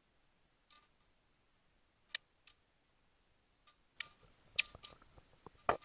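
Scattered sharp clicks and light taps, about a dozen at irregular spacing, bunching up near the end, from hands and tools working at a metal panel.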